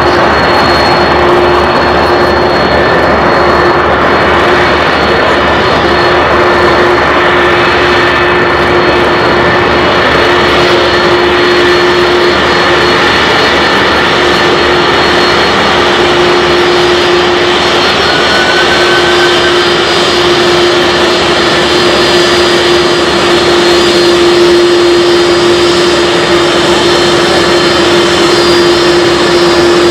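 Airbus A330-200 twin turbofans (General Electric CF6-80E1) running at low taxi thrust as the airliner taxis past: a loud, steady jet whine and rush with a constant low hum.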